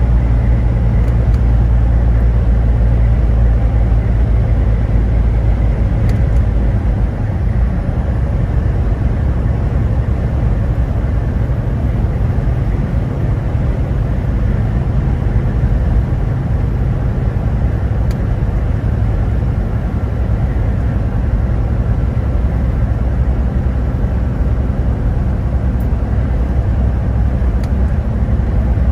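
Steady low rumble of a road vehicle driving.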